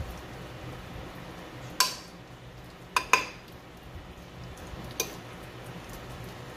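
A metal spoon clinking against the dishes while ricotta is scooped and spread: one clink about two seconds in, a quick double clink around three seconds, and one more near five seconds, over a low steady hum.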